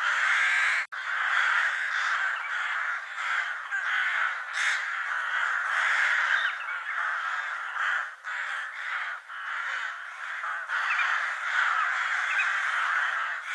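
A flock of crows cawing at once, many calls overlapping with hardly a gap. The sound cuts out for an instant about a second in, then carries on.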